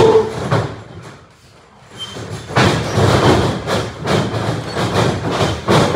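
A sharp impact at the start, then from about two and a half seconds in a fast run of heavy thuds and knocks: a wrestler's feet pounding across the practice wrestling ring's mat.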